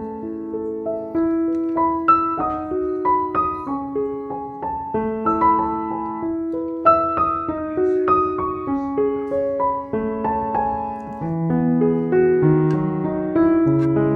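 Background piano music: a melody of single notes and chords played one after another.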